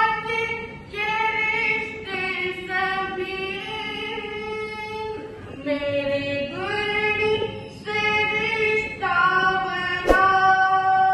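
A woman's voice singing a Jain devotional bhajan without accompaniment, in long held notes that glide slowly between pitches, phrase after phrase with short breaks for breath. A short sharp click sounds near the end.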